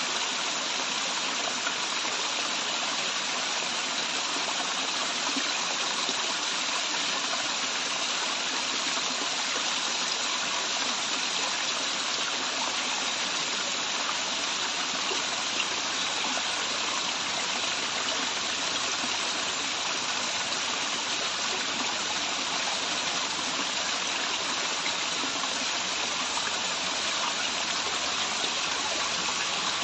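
Waterfall water falling and rushing in a steady, even stream.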